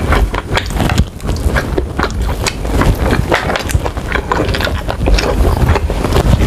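Close-miked chewing and lip-smacking on sauce-glazed chicken wings: a steady run of short, sharp clicks and smacks.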